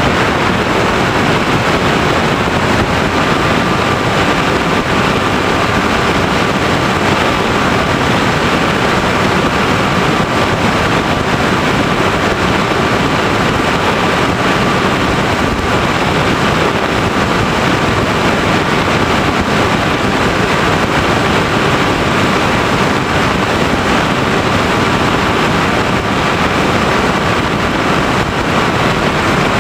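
Steady rush of wind and propeller noise picked up by the onboard camera of an FPV Raptor model plane in flight. A faint steady whine sits underneath from about three seconds in.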